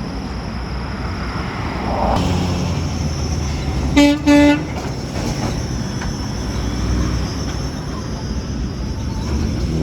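A garbage truck's horn gives two short honks about four seconds in, over the steady running of a heavy truck engine.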